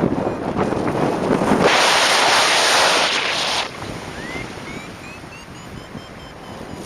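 Wind buffeting the microphone, with a louder rush of wind for about two seconds. Then a paraglider variometer beeps about three times a second, its pitch rising, the sign that the glider is climbing in lift.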